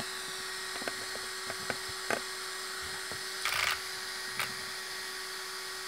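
Coreless digital steering servo (Savox SC-1257TG) snapping the front wheels of an RC touring car side to side, the sticky tyres scrubbing on the wooden desk: a few sharp clicks and one brief whirr about three and a half seconds in, over a faint steady hum.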